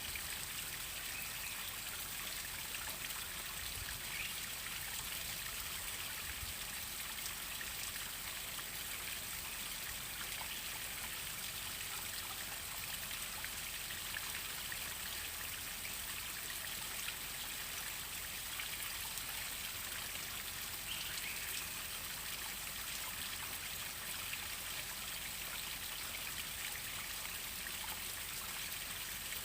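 Waterfall: falling water rushing and splashing steadily, a constant even hiss without pauses.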